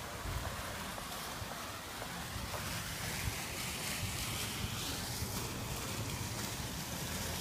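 Wind buffeting the iPhone 5's microphone, an uneven low rumble, over a steady outdoor hiss of street ambience.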